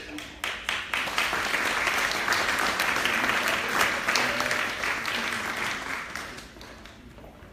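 Audience applauding: a few scattered claps swell into steady applause, which fades away near the end.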